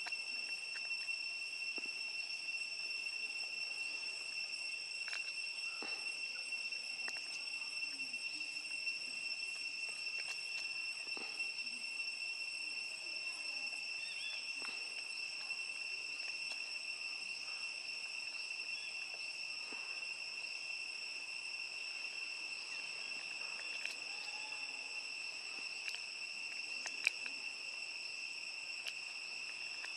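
Steady insect chorus: a continuous high-pitched drone with a second, higher tone above it, with faint scattered ticks and one sharp click near the end.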